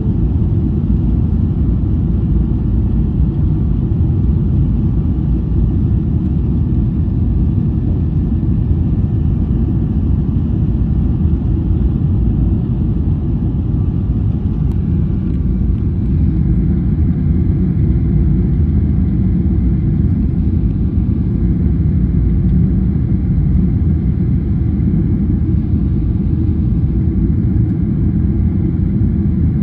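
Boeing 777-300ER cabin noise during the climb after takeoff: a steady, loud low rumble of its GE90-115B engines and rushing air, heard from inside the cabin by a window seat.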